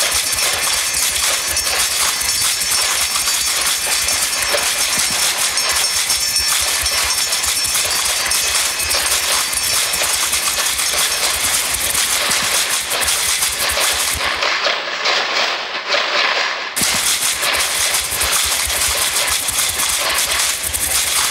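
Dense electronic noise soundscape of the performance's sound art, a steady hiss-and-rumble haze. About two-thirds of the way in, its highest and lowest ranges abruptly drop out for about two seconds, leaving only a thinner middle band before the full sound returns.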